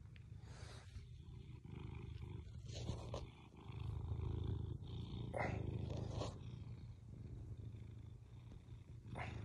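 Tuxedo cat purring as it is stroked, a steady low rumble close to the microphone, with a few brief breathy noises over it. The purring is the sign of a contented cat.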